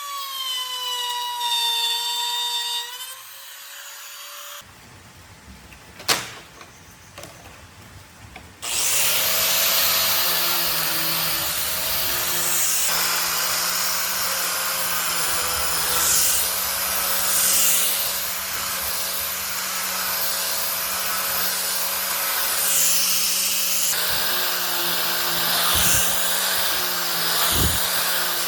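Electric power tool working wood. Its motor whines with a wavering pitch for the first few seconds and then stops. After a quieter stretch with a single sharp click, the tool starts again about 9 seconds in and runs steadily under load, its pitch wavering as it bites into the wood.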